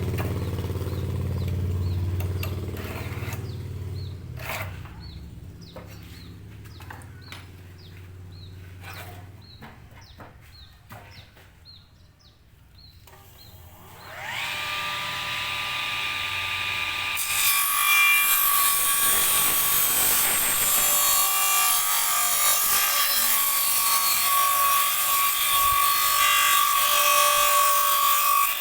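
A low engine hum fades out and a run of light clicks follows. About halfway in, an electric circular saw motor whines up to speed and runs steadily; a few seconds later its blade starts cutting wood, a loud continuous sawing noise.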